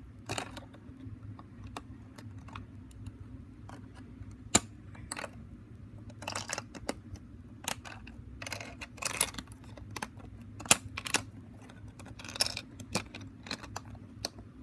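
Plastic Lego bricks clicking and rattling as they are pulled off and pressed back onto a Lego boat, in irregular clicks with a couple of sharper snaps.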